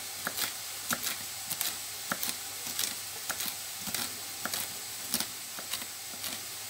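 Kitchen knife chopping dill on a wooden cutting board: irregular sharp taps, about two or three a second, over the steady sizzle of frying in a pan.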